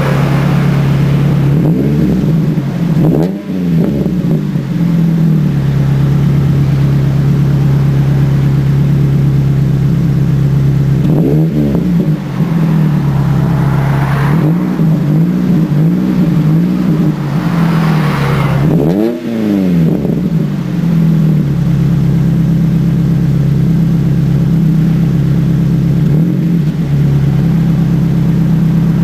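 Ford Focus engine idling through an aftermarket Mongoose exhaust with OBX headers and a de-cat pipe (catalytic converter removed), revved in short throttle blips several times, the pitch rising and falling back to idle each time, the biggest rev about two-thirds of the way through.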